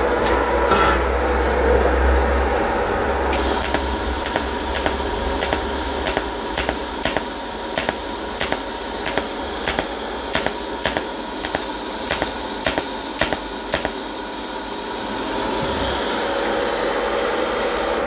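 TIG welder tack welding. A steady hiss starts a few seconds in, then a regular run of short clicks, about two a second, as the tacks are struck, with the hiss shifting near the end.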